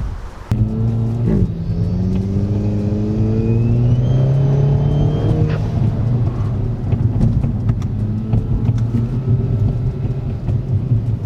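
Kia Forte GT's turbocharged 1.6-litre four-cylinder through an XForce catback exhaust with Varex valved muffler, accelerating with the exhaust note rising steadily in pitch for about four seconds, then easing off and running on at a steadier drone. The sound cuts in suddenly about half a second in.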